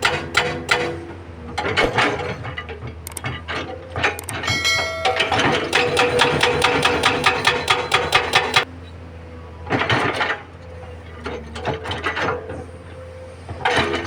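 A hydraulic rock breaker (hammer) on a SANY SY215C excavator pounding large rock in rapid blows over the steady diesel engine. The hammering stops about two-thirds of the way in, comes back for a short burst, then starts again near the end.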